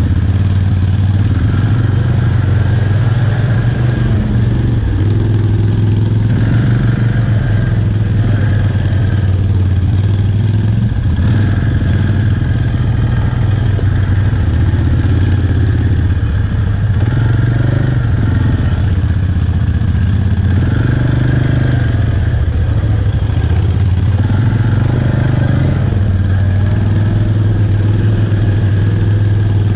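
ATV engine running at low trail speed, heard from the machine itself, its note swelling and easing every few seconds as the throttle is worked over rough, muddy ground.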